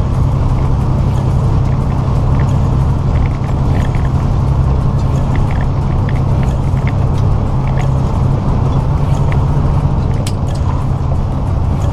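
Inside a heavy truck's cab at highway speed: the diesel engine's steady low drone under road noise, with scattered light ticks.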